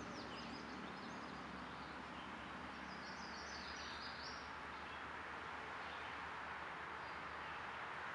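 Steady outdoor background hiss with faint songbird chirps: a few short high calls about a second in and a brighter twittering phrase from about three to four and a half seconds in.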